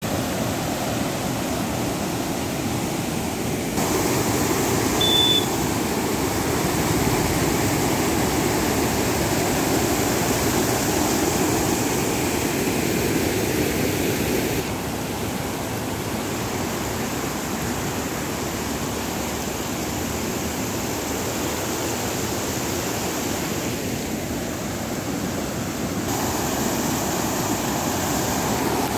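River in flood rushing white through the arched sluice openings of a weir and down a fast stream channel: a steady rush of turbulent water whose tone shifts abruptly a few times. A short high peep sounds once about five seconds in.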